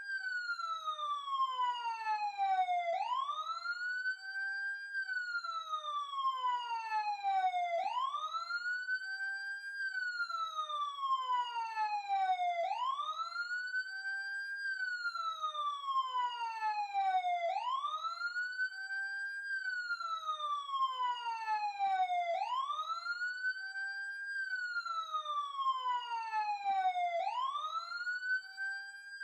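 Police siren on its wail: the tone climbs quickly in pitch, then slides slowly back down, over and over about every five seconds.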